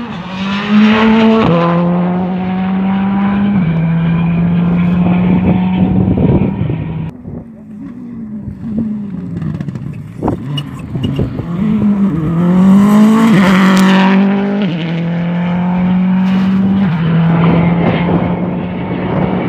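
Rally cars at full throttle on a gravel stage, the engine note climbing and dropping in steps as the driver shifts up through the gears. The engine sound falls away about seven seconds in, leaving a few sharp clicks. A second car then brakes, accelerates hard and works through its gears.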